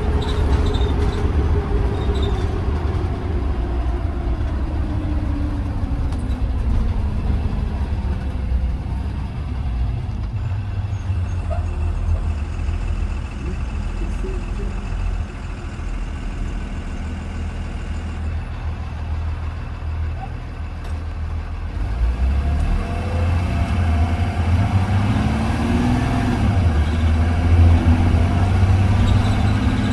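Ride inside a moving 2020 Blue Bird Vision school bus: a heavy engine and road rumble, the engine note falling over the first several seconds as the bus slows, then rising again about two-thirds of the way through as it picks up speed.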